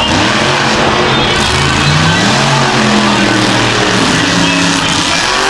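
Grave Digger monster truck's supercharged V8 revving as it drives, its note rising about two seconds in and falling back, mixed with loud music.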